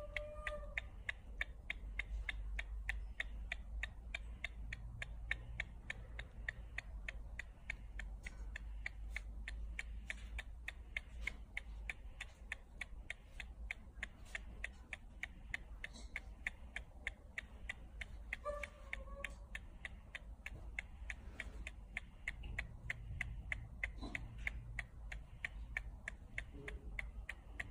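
Baby macaque sucking on its fingers, a steady run of small wet clicks at about four or five a second. It gives a short high squeaky call near the start and again about two-thirds of the way through.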